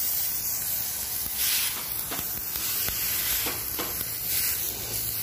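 Pressure-washer jet hissing steadily against wet concrete, with several short swishes of a stiff stick broom sweeping the water.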